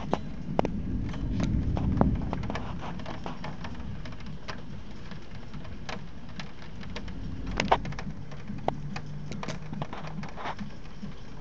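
Steady rain with scattered sharp drips and taps close by, and a low thunder rumble that fades away within the first couple of seconds.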